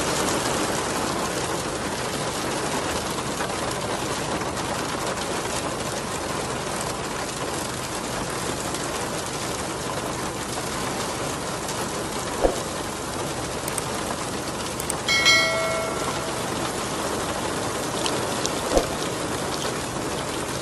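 Heavy rain pouring steadily, a dense unbroken hiss. Two sharp knocks sound about twelve and nineteen seconds in, and a brief high-pitched tone rings out about fifteen seconds in.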